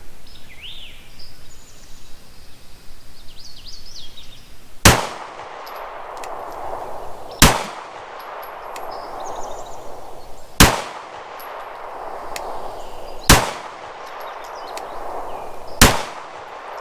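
Glock 19 9mm pistol fired five times in slow, deliberate single shots, about two and a half to three seconds apart, each a sharp crack with a short ringing echo.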